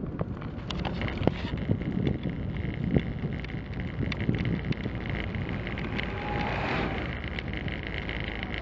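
Wind rushing over a camera on a moving vehicle, mixed with steady engine and road noise, with scattered sharp knocks and rattles throughout.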